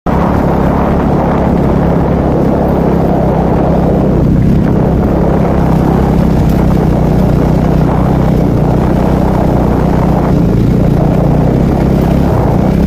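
A vehicle engine running at a steady low drone while driving, with a noisy rush of road and wind over it.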